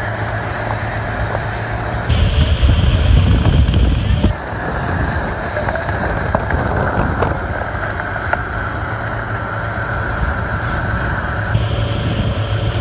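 Motorboat running at speed, its engine rumbling under wind buffeting the microphone and the wake rushing. The sound jumps abruptly in level a few times.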